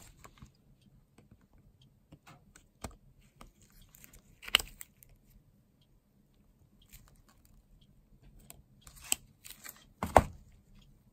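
Circlip pliers working the retaining circlip off the shaft of a Linhai ATV water pump: scattered small metallic clicks and scrapes of the tool and part being handled, with a sharp click about four and a half seconds in and a louder one near the end.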